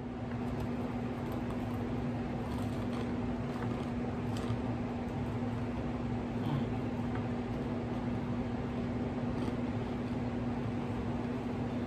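Close-miked chewing of a crispy fried oyster mushroom wrap, a few soft crunches and mouth clicks, over a steady hum with one constant low tone.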